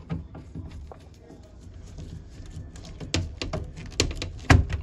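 Irregular clicks, taps and knocks of hands and tools working wires in a metal breaker panel, with a few heavier knocks in the second half and the loudest one near the end.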